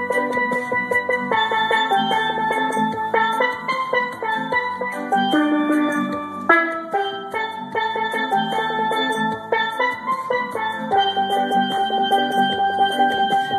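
Steel drum (steelpan) music: melody and chords struck with fast rolls that sustain the notes, the pitch changing every second or so.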